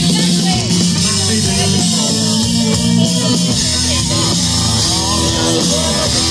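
Live band playing loud amplified music: drums, electric guitar and bass guitar, with a singer's voice over them.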